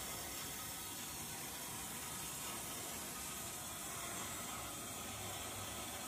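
Steady, even hiss of a newly fitted Ideal Vogue gas combi boiler running, its fan and burner firing.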